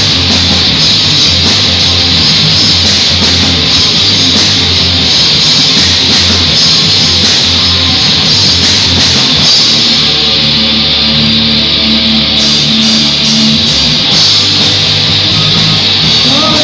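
Live heavy rock band playing an instrumental stretch: distorted electric guitars, bass and drums, loud and dense. About ten seconds in, the cymbals drop out for a couple of seconds under held low guitar and bass notes, then the full band comes back.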